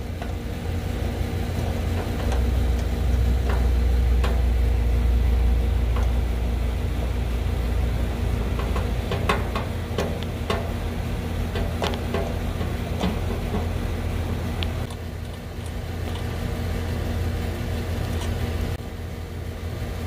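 Steady low machine hum. Around the middle come a string of light metallic clicks and taps from a brass valve core removal tool being worked on a condenser's service-port fitting while the Schrader valve cores are replaced.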